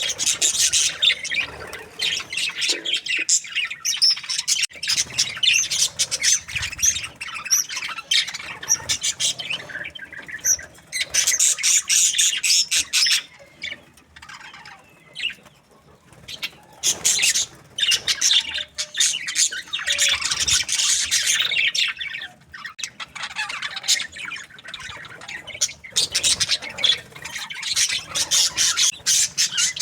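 A flock of budgerigars chattering and chirping in rapid, high-pitched bursts, easing off briefly twice.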